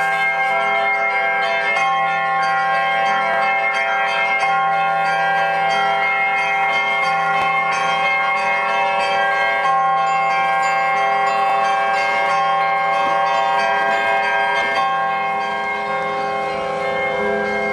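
Russian Orthodox church bells pealing: several bells struck over and over, their tones overlapping in a dense, continuous ringing.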